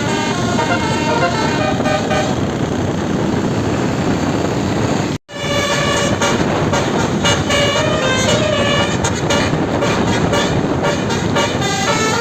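Bus telolet horn (Basuri 12-note multi-tone horn) playing quick runs of short notes that step from pitch to pitch like a tune, over a steady noise. The sound cuts out for an instant about five seconds in, then the note runs resume.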